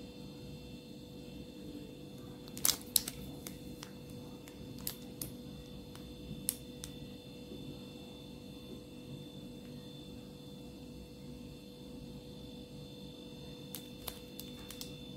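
Faint sharp clicks of a plastic squeeze bottle being squeezed to fill a fried dough ball with chocolate sauce, over a low steady hum. There are a few clicks close together about three seconds in, single ones around five and six seconds, and a few more near the end.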